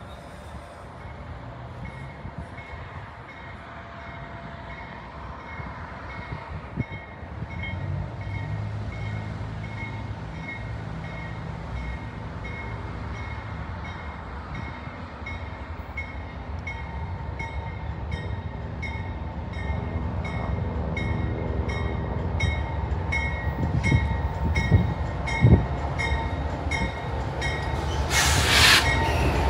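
Metra commuter train approaching and growing steadily louder, a low rumble building under a bell that rings evenly, a little under two strokes a second. A brief loud hiss comes near the end.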